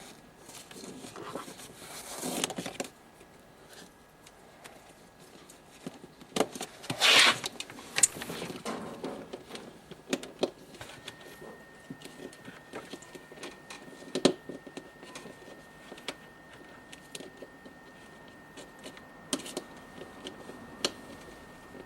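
Irregular clicks, knocks and scrapes of parts being handled and worked on, loudest as a scraping, rustling stretch about seven seconds in. A faint steady high whine runs underneath and steps slightly higher about halfway through.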